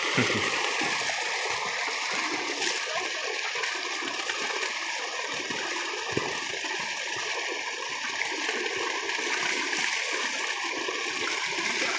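Steady rushing and splashing of water: a strong jet gushing from an irrigation pipe into a concrete farm tank full of bathers, with water pouring out through the tank's outlet pipes.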